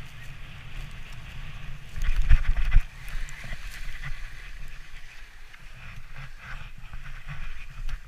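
Wooden sledge sliding fast over a packed-snow track: the runners hiss and clatter over the snow, with a low wind rumble on the microphone. A louder, rougher rumble comes from about two seconds in to nearly three seconds.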